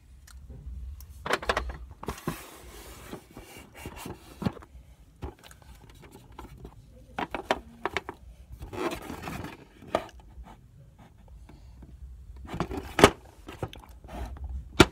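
Handling noises from hands moving the recording phone and small toys: scattered rubbing and scraping with short knocks, the sharpest knock near the end.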